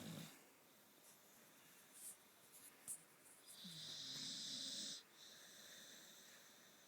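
A dog snoring in its sleep: one long snore of about a second and a half midway, with the end of another right at the start.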